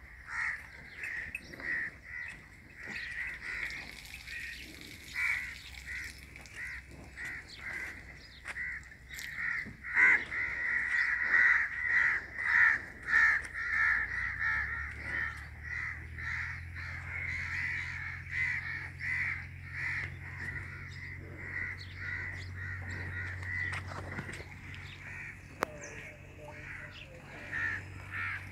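Birds calling over and over in a dense, steady chorus, busiest about a third of the way in. A low steady hum comes in about halfway.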